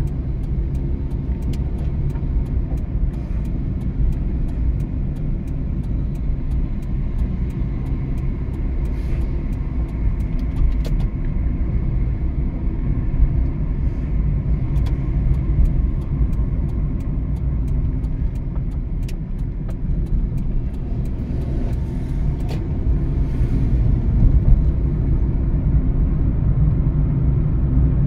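Car driving: a steady low engine and road rumble with scattered light clicks.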